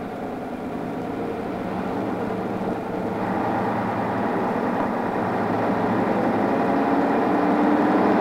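Diesel engine of a London Routemaster double-decker bus running as the bus drives up, growing steadily louder as it comes close.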